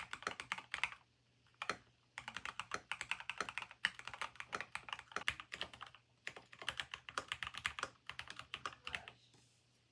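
Typing on a mechanical keyboard: fast runs of keystroke clicks broken by short pauses a little after a second in and around six seconds in, stopping shortly before the end.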